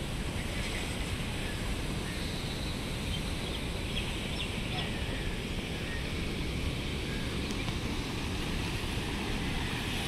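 Steady rush of river water flowing below a dam, with low, uneven rumbling of wind on the microphone; the water grows slightly louder near the end.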